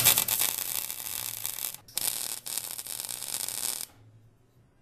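MIG welding arc crackling on steel. The arc breaks off briefly just under two seconds in, strikes again, and cuts off about a second before the end.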